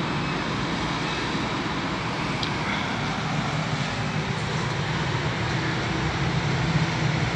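Steady background hum and hiss with a constant low drone, the even sound of running machinery.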